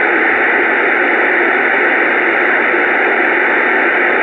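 Steady two-way radio static: an open channel hissing evenly through the receiver with no one talking.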